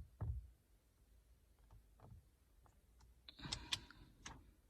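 Fingertips pressing and tapping on a tempered glass screen protector laid over a car touchscreen: a dull thump just after the start, then scattered light clicks, with a quick run of clicks about three and a half seconds in.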